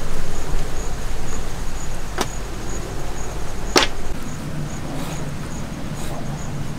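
Outdoor ambience: a faint high insect chirp pulsing about four times a second over a steady low rumble, with two sharp clicks about a second and a half apart.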